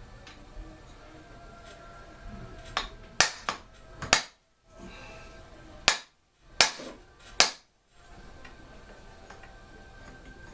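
Sharp metal knocks, about seven strikes spread over five seconds, like a hammer tapping a part loose during the teardown of an old Homelite chainsaw.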